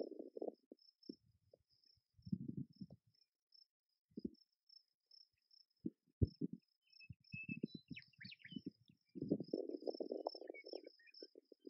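Faint open-country ambience: a steady, pulsing, high insect-like trill throughout, with irregular low rumbles of wind on the microphone. A few quick bird chirps come about eight seconds in.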